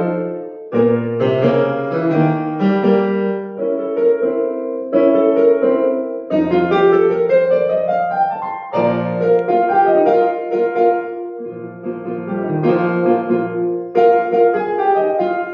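Solo piano playing a lively piece of chords and quick notes, with a long rising run of notes about halfway through.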